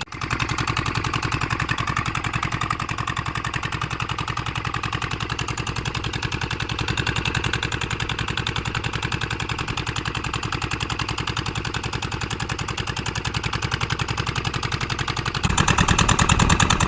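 Fishing boat's engine running steadily with a rapid, even pulse. It gets louder and fuller near the end.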